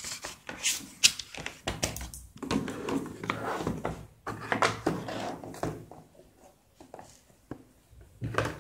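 Things being handled on a desk: a scatter of light knocks, taps and clicks with rustling, as a notebook and box are picked up and moved and the phone is handled.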